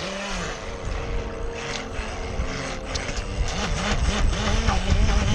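Electric motor of a Pro Boat 17-inch Lucas Oil RC speedboat running under throttle, its pitch rising and falling as the throttle is worked, over a low rumble that grows louder toward the end.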